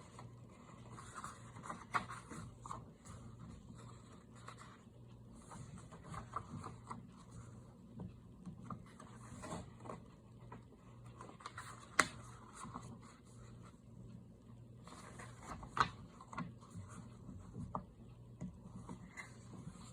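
Paper pages of a coloring book being turned and handled: soft rustling and rubbing, with a few sharper taps about 2, 12 and 16 seconds in, over a faint steady low hum.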